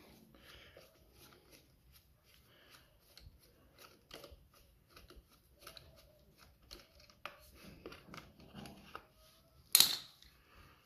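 Faint metallic clicks and scrapes of a 10 mm tubular socket wrench working the nuts that hold a lawnmower's plastic air filter housing, with one sharp clack near the end.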